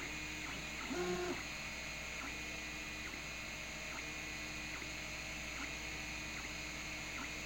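3D printer's stepper motors whining as the printer moves, in short tones that shift pitch every fraction of a second. About a second in there is a louder tone that rises, holds and falls, as one move speeds up and slows down.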